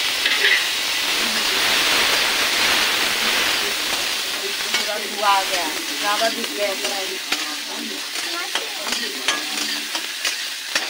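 Chopped tomatoes sizzling in hot oil in a steel kadhai, loud at first and slowly easing off. A metal spatula clicks and scrapes against the pan as they are stirred.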